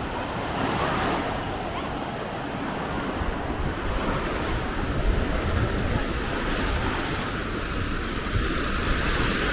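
Small waves breaking and washing up the sand at the shoreline, a steady rush of surf, with wind buffeting the microphone and the voices of people on the beach mixed in.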